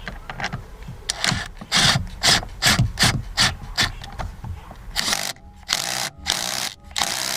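Impact wrench driving home the steering-wheel retaining bolt in trigger bursts: a quick run of short rattling bursts, then several longer half-second bursts with a steady motor whine.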